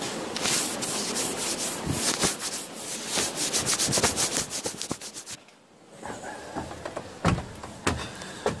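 Handling noise from a hand-held camera being carried: a rapid run of rubbing, scraping strokes for about five seconds, a brief lull, then a few separate knocks near the end.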